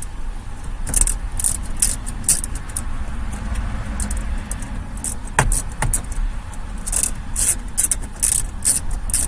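Scattered light clicks, scrapes and rattles of a screwdriver and plastic dash trim as a screw under a car's dashboard is worked loose, with two sharper ticks about five and a half seconds in.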